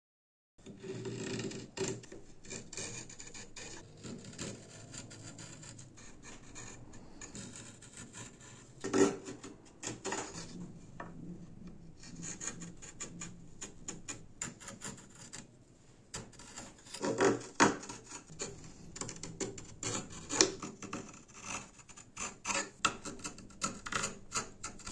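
Wild plum wood being abraded: irregular rubbing and scraping strokes on the wooden comb, starting about half a second in, with a few louder scrapes around nine and seventeen seconds in.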